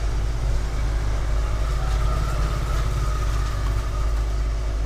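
Steady low background rumble, with a faint thin tone coming and going in the middle.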